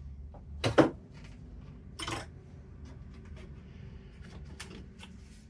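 Metal hand tools clinking and knocking as they are handled and set down on a workbench: a sharp knock just under a second in, another at about two seconds, and lighter clicks between.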